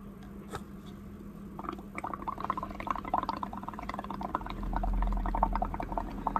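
Blowing through a paper straw into a cup of paint and bubble solution: the liquid bubbles and gurgles in a quick run of small pops, starting about a second and a half in and growing louder as the foam rises over the rim, a sign the mix is now thin enough to bubble. A steady low hum sits underneath.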